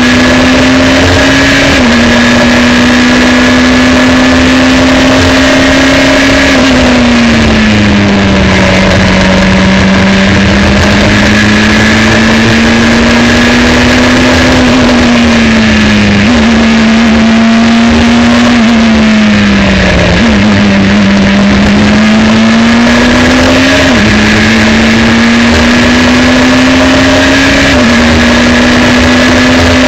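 Dallara F302 Formula 3 car's two-litre four-cylinder engine running hard on track. Its loud note rises and falls with the throttle, with a few sudden pitch jumps at the gear changes.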